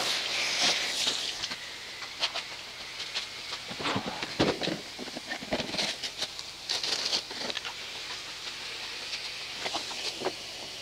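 Garden hose water spraying briefly onto a car's hood, then irregular light pattering and taps of water dripping off the wet car.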